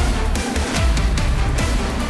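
Background music with a steady, driving drum beat.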